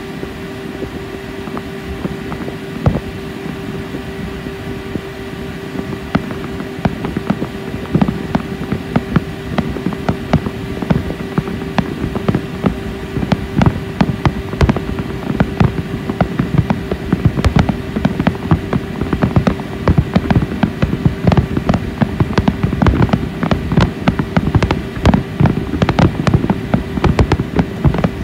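Fireworks bursting: scattered bangs and crackles at first, growing denser from about eight seconds in until they come almost without a break in the second half, over a steady low hum.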